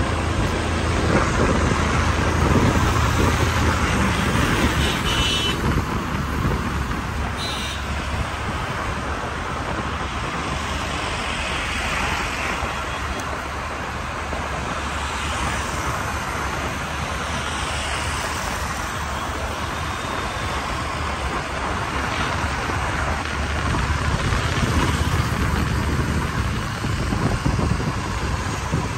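Road traffic noise from moving cars, motorcycles and trucks, a steady rush of engines and tyres, with a couple of brief horn toots about five and seven seconds in.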